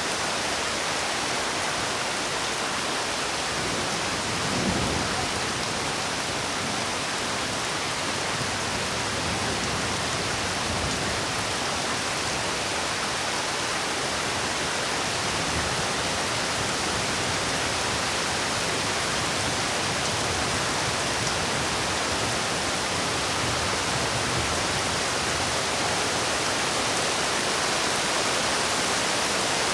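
Steady rain falling, an even continuous hiss with no breaks, with one brief low thump about five seconds in.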